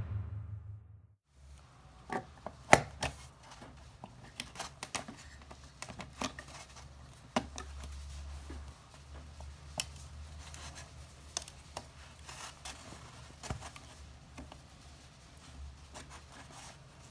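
Scattered small clicks, taps and short scrapes of hard little objects being handled, irregular and of varying strength, over a faint low steady hum.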